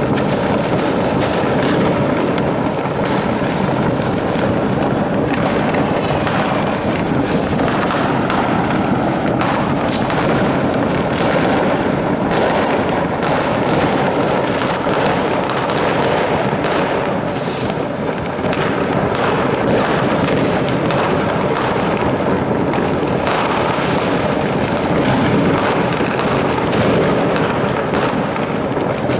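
New Year's Eve fireworks going off all around: rockets and firecrackers make a continuous din of overlapping bangs and crackles. Short falling whistles repeat several times over the first eight seconds or so.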